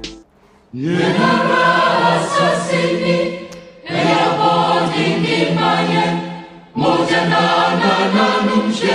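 Choral music: voices singing together in three phrases of about three seconds each, with a short break between them.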